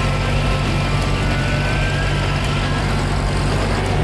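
Old sawmill's power engine running steadily, a constant low drone with no break.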